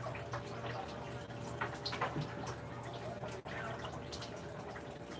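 Gas stove burner burning steadily under a frying pan, with a constant low hum and a few faint clicks about two seconds in.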